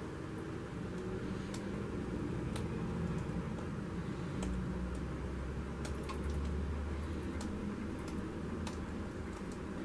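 Acrylic paint dripping off the edge of a tilted canvas onto a plastic sheet: faint, scattered soft ticks at irregular intervals over a steady low hum.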